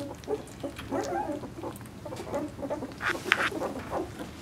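A litter of two-week-old Vizsla puppies calling with many short overlapping squeaks and whimpers. A couple of sharper, higher cries come about three seconds in.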